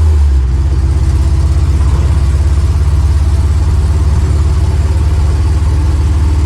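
Old vehicle driving along at a steady speed: a loud, steady, low engine and road drone.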